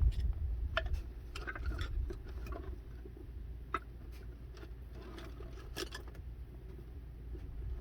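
Scattered light clicks and taps of hand tools and metal parts being handled during a front axle teardown, a few each second at first and sparser later, over a steady low rumble.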